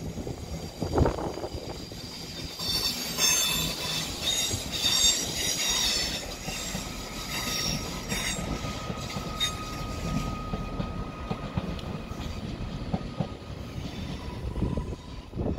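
Northern Class 170 Turbostar diesel multiple unit moving through the station tracks, with a low rumble of wheels and engine throughout. A few seconds in, its wheels squeal in a cluster of high, shrill tones for about five seconds, and a single steady whine holds for a few seconds after.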